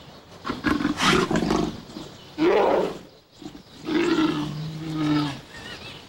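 Giant pandas giving three loud calls, the last one longer and held at a steady pitch: aggressive calls from one panda toward the other.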